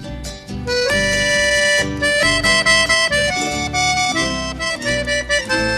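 Instrumental passage of a song: an accordion comes in about a second in, playing a melody of held notes over plucked guitar and bass.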